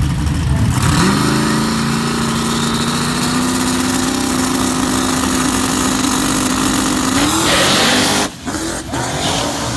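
Turbocharged Fox-body Ford Mustang drag car's engine at the starting line: it revs up about a second in and is held at steady high revs for several seconds. Near the end it climbs sharply into the loudest part as the car launches away.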